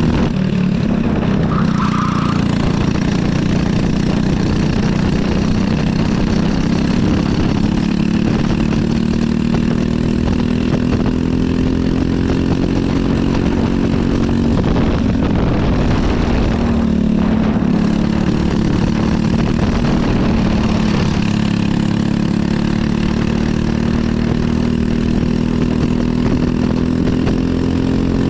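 Briggs & Stratton LO206 kart's single-cylinder four-stroke engine running under load on track, its revs climbing slowly along the straights. About halfway through the revs fall as the kart slows for a corner, then pull up again.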